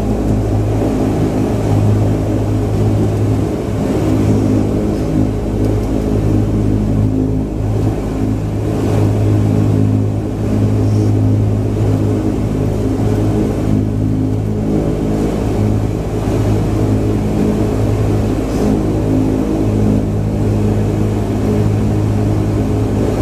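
Steady drone of the De Havilland DHC-8-300's Pratt & Whitney PW123 turboprop engines and propellers at low power, heard inside the cabin: a strong low propeller hum with a stack of steady tones above it and an even level.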